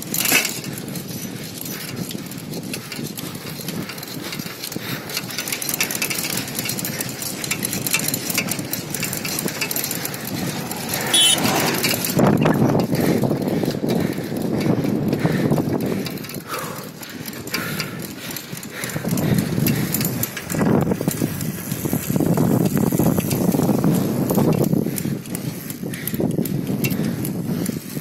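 Bicycle ridden at full speed over a rough road: wind buffeting the phone's microphone in rising and falling gusts, with the tyres rolling on the asphalt and the frame rattling in quick clicks.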